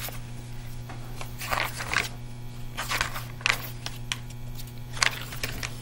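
Pages of a paperback picture book being opened and turned, a handful of short paper rustles over a steady low hum.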